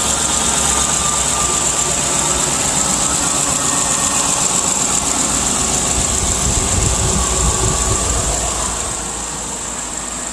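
2016 Chevy Silverado's L83 V8 idling steadily, with no exhaust-manifold tick now that the broken passenger-side manifold studs have been replaced with new bolts. It gets a little quieter near the end.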